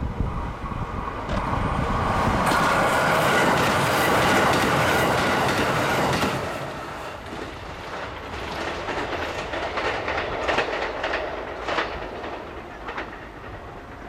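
KiHa 189 series diesel limited express passing at speed. Its engines and wheels are loudest from about two to six seconds in, then fade as it draws away. As it recedes, a run of sharp clacks comes from the wheels crossing rail joints.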